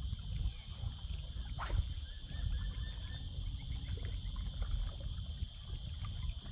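Insects buzzing in a steady, high-pitched drone over a low rumble of wind and water. A short run of four small chirps sounds about halfway through, and there is a single light tap just under two seconds in.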